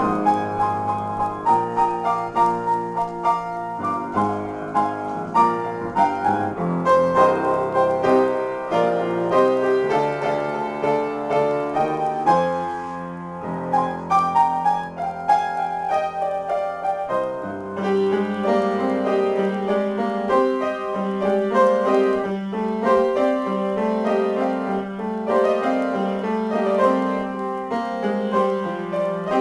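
Solo piano improvisation, notes played without a break apart from a short lull about 13 seconds in. From about 18 seconds in a repeated lower figure runs steadily under the melody.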